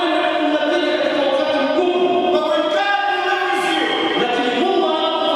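Voices singing a slow melody with long held notes that step from one pitch to the next.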